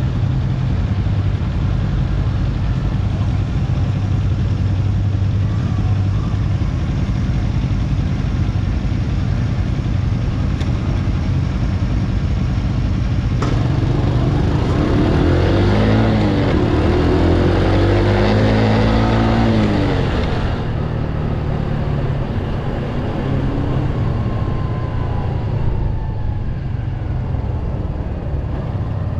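Motorcycle engine idling steadily at a standstill, then pulling away about halfway through, its revs rising and falling as it picks up speed with a rush of wind noise, before settling to a steadier run.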